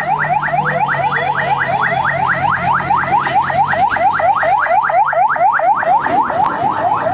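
Police pickup's electronic siren, a fast repeating yelp of short rising sweeps, about five or six a second, over a low steady hum.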